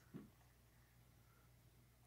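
Near silence: room tone with a steady faint low hum and one soft, brief thump a fraction of a second in.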